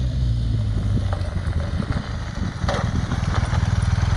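BMW R 1250 GS's boxer twin engine running under load as the motorcycle is ridden along a gravel road, its throbbing growing stronger about halfway through, with some crunching from the tyres on gravel.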